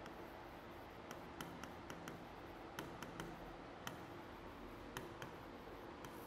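Writing on a greenboard: irregular sharp ticks and taps as the writing tip strikes the board with each letter, over steady faint room hum.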